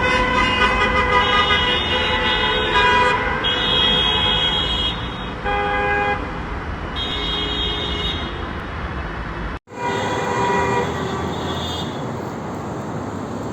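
Many car horns honking at once in city traffic: overlapping long blasts at different pitches, starting and stopping every second or two. The horns are sounded together as a mass protest signal. After a sudden cut about ten seconds in, a few more honks sound, then only traffic noise.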